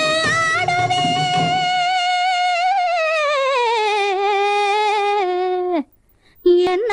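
Music from a 1960s Tamil film song: one long held melodic note. The accompaniment drops away after about two seconds while the note slides slowly down in pitch, then breaks off suddenly near the end and, after a short gap, comes back in.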